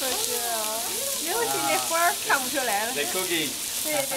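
Voices talking over a steady sizzling hiss of food frying.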